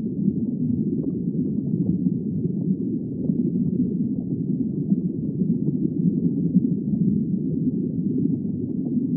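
Underwater ambience: a steady, dense, low rumble with no distinct calls or clicks.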